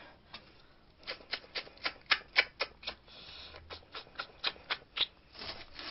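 Steamed snow crab shell being broken and picked apart by hand: a quick run of sharp cracks and clicks, about four a second, with a short rustle near the end.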